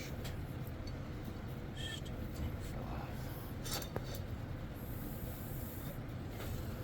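A few faint, light clicks of metal parts and tools being handled, over a steady low background hum.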